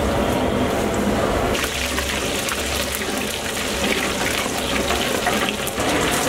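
Mustard and cumin seeds sizzling in hot oil in a large kadai: a steady frying hiss with many small crackles and pops, as the spices are tempered.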